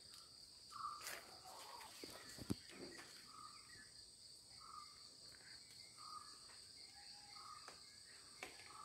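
Faint outdoor ambience: a steady high trilling of insects, with a bird giving short chirps again and again and a couple of soft clicks from the phone being handled.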